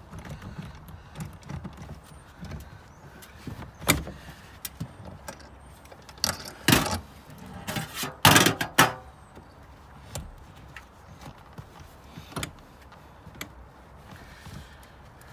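Socket ratchet tightening a rear-seat hinge bolt, clicking, mixed with metal tool clanks and knocks; a run of the loudest clanks and rattles comes between about six and nine seconds in.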